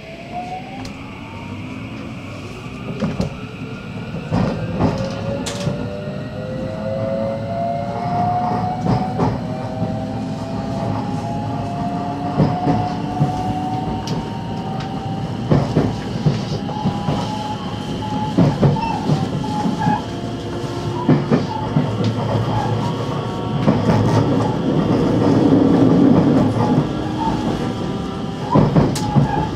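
JR West 223 series electric train heard from inside a motor car as it pulls away and accelerates. The traction motor whine rises in pitch over the first ten seconds or so, then holds steady at speed. Through it the wheels click and knock over rail joints and points, and the running noise grows louder.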